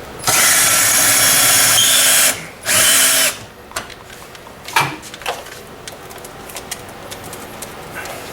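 Power drill with a carbide bit running hard, boring out a hole through a garage door: a burst of about two seconds, a brief stop, then a second shorter burst. A single knock follows about five seconds in, with light clicks after it.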